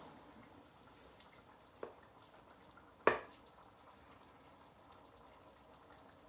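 Dishware being handled while a bowl is fetched: a soft knock about two seconds in and a sharper clink about a second later, over the faint simmering of a pan of Bolognese sauce on the stove.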